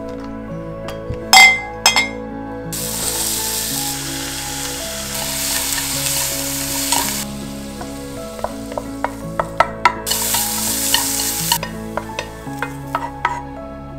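Cucumber strips sizzling in a frying pan as they are stirred with wooden chopsticks, the sizzle surging twice, with small clicks of the chopsticks and food against the pan and containers. Two sharp glass clinks come about a second in, and soft background music runs underneath.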